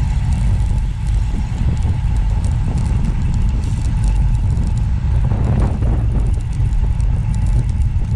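Steady low rumble of a moving motor vehicle, road and engine noise, with a faint steady whine above it.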